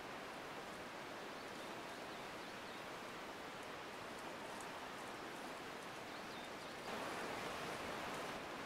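Steady outdoor background hiss, with no stag roar heard; it gets slightly louder near the end.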